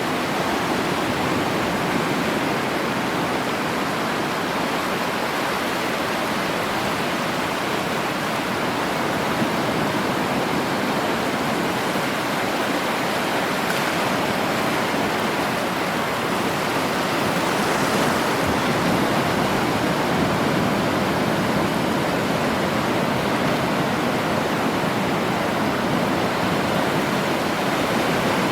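Sea surf: a steady, continuous rush of waves breaking, swelling slightly a little past halfway.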